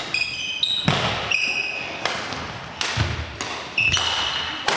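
Badminton doubles rally: rackets striking the shuttlecock about once a second, with short high squeaks of sports shoes on the hall floor between the hits.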